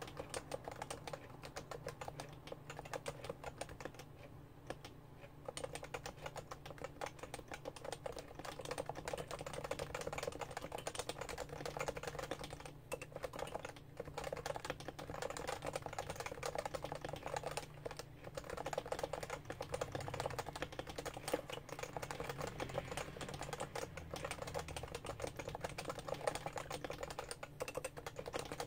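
Continuous fast typing on a Realforce R2 keyboard with Topre electrostatic-capacitive switches: a steady stream of soft, muted keystroke clicks, with a few short pauses.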